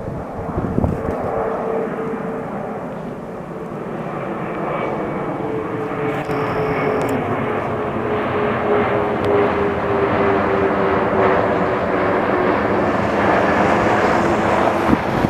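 Jet airliner passing low overhead, a steady loud engine roar with a whine that slowly falls in pitch as the plane goes by.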